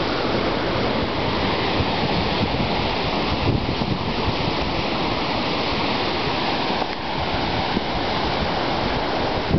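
Sea surf breaking and washing over a rocky shore below a cliff, a steady rush of waves, with wind buffeting the microphone.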